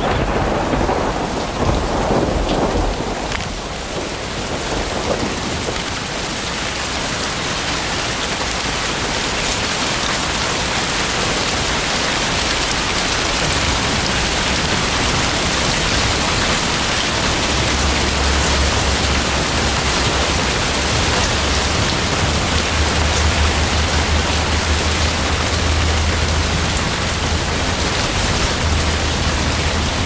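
Heavy rain pouring steadily, with a rumble of thunder in the first few seconds. A deep, steady low rumble sits under the rain in the second half.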